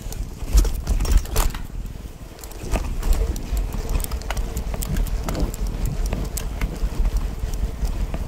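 Mountain bike rolling along a dirt trail, with wind rumbling across the camera microphone and frequent sharp clicks and rattles from the bike over the bumps.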